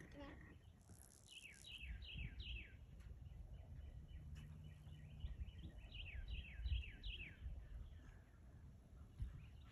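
Small songbird chirping in two runs of quick, falling notes, over a faint low rumble.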